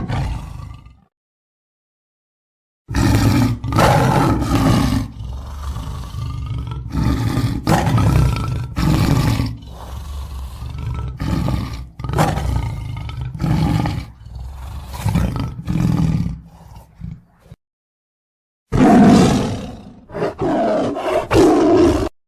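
Lion roaring: after a brief silence, a long bout of loud deep roars that tails off into shorter, weaker grunts. After another silence a second bout of roars starts and stops abruptly.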